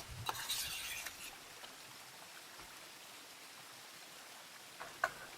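Rustling handling noises for about a second, then the steady faint hiss of a running stream, with a single short tap near the end.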